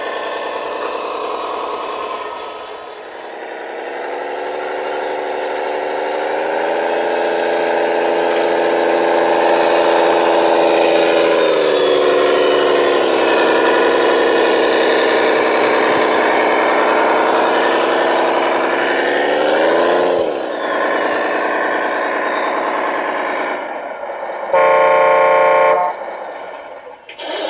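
Radio-controlled truck running, its engine-like drone stepping up and down in pitch several times as it drives, then a horn blast lasting about a second and a half near the end.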